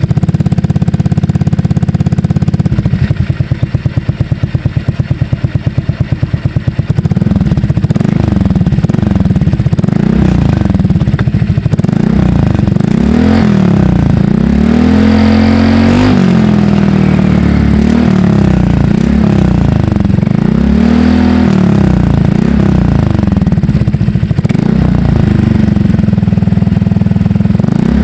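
Honda Click scooter engine running through an SC Project aftermarket exhaust fitted with a double silencer, one at the tip and one inside the pipe. It idles at first, then from about seven seconds in it is revved up and let fall back several times.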